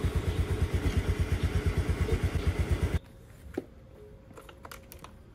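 Small motor scooter engine running while riding, a fast, even low pulsing under rushing wind noise, which cuts off abruptly about three seconds in, leaving only faint ticks.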